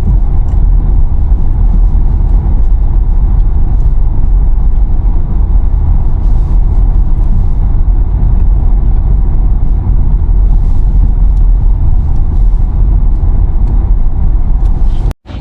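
A car driving on a dirt road: a loud, steady low rumble of tyres and engine, cutting off suddenly just before the end.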